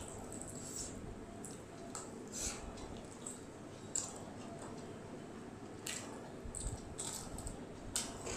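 Close-miked eating: wet chewing with scattered mouth clicks and smacks, along with fingers mixing fried rice and chili chicken on a plate.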